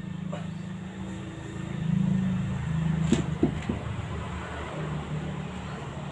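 A motor vehicle engine running steadily with a low hum that swells about two seconds in. Three short metallic knocks come a little after the middle, from work at the wheel.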